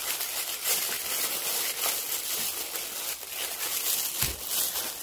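Disposable plastic gloves crinkling and rustling in irregular small crackles as gloved hands peel mandarin oranges. A soft thud near the end as a peeled mandarin is set down on the tray.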